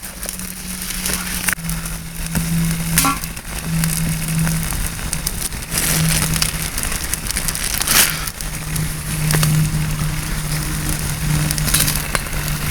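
Small wood fire crackling, with a few sharp pops, over a low steady hum that comes and goes.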